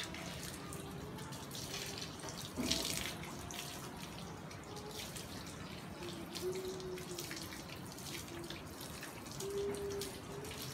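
Water spraying from a garden hose onto a wet dog's coat and the tiled floor, with a brief louder burst about a quarter of the way in.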